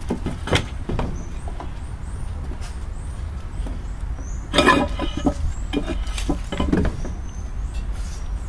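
Outdoor background with a steady low rumble and faint short high chirps, broken by a few sharp clicks and knocks and a brief harsh, louder sound about four and a half seconds in.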